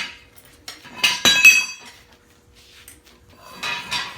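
Metal parts clinking and rattling in two bursts, one about a second in and one near the end; the first carries a brief ringing.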